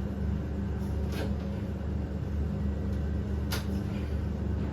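Two short, sharp clicks, about a second and three and a half seconds in, over a steady low hum.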